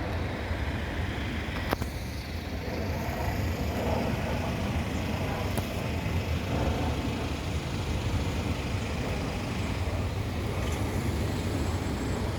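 Steady low rumble of road traffic, with a single sharp click just under two seconds in.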